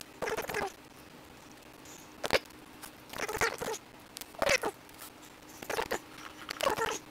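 Handling noise at a workbench: a series of short scratchy rustles and knocks as parts are handled, with one sharp click a little over two seconds in.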